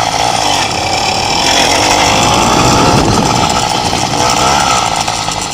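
Small motorcycle engine running at speed while riding, a steady loud buzz with slight rises and dips in revs.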